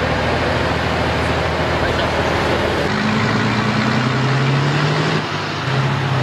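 Heavy multi-axle military missile-launcher trucks driving past, their engines running under loud road and engine noise. About halfway through the engine note rises slowly in pitch as a vehicle pulls by.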